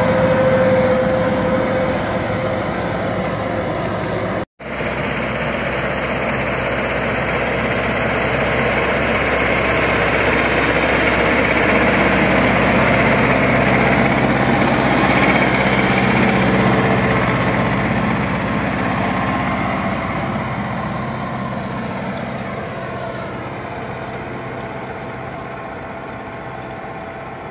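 New Holland TD5.110 tractor's diesel engine running steadily under load while pulling a mouldboard plough through the soil, with a brief dropout about four seconds in. The sound fades steadily over the last dozen seconds as the tractor moves away.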